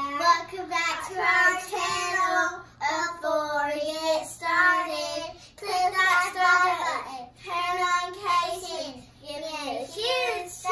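Young girls singing a song together, in short phrases of drawn-out notes.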